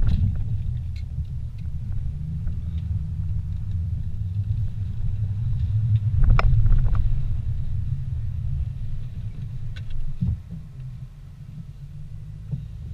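Low rumble of a car's engine and tyres heard from inside the cabin as it rolls slowly at low speed. There is a sharp knock about six seconds in and a low thud about ten seconds in, after which the rumble gets quieter.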